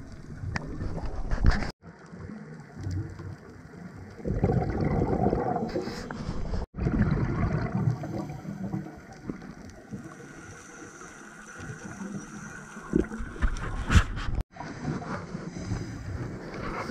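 Scuba regulator breathing underwater: surges of gurgling exhaled bubbles alternating with quieter stretches.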